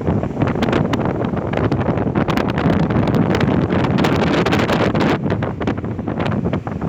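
Strong wind buffeting the microphone: a continuous rough rumble full of crackles and pops.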